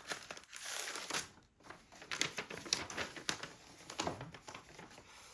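Irregular rustling and crinkling noise, like paper or plastic being handled, with many short crackles that come and go.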